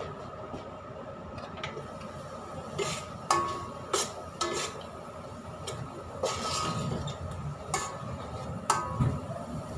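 A black-handled utensil stirring in a cooking pot, knocking and scraping against it in about seven sharp, ringing clinks.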